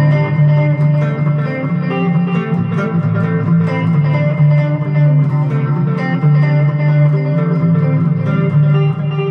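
ESP LTD EC-256 electric guitar with a capo, played through a Line 6 Spider V 60-watt amp: a picked chord pattern, the notes ringing into one another over a steady low bass note.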